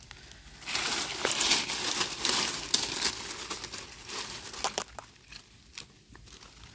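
Crinkling, crackling rustle of dry material being disturbed. It is loud for the first couple of seconds, then fades, with a few sharp snaps.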